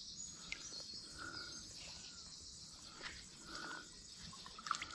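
Faint, steady, high-pitched insect chirring, with a few soft ticks.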